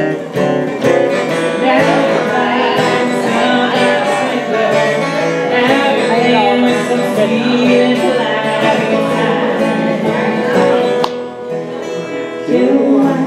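Live folk song: a woman singing over a strummed acoustic guitar. The music thins out briefly near the end.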